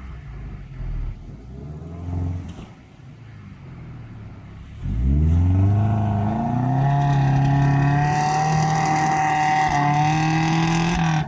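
A motor vehicle's engine running low, then about five seconds in revving up sharply and holding at high revs, loud and steady.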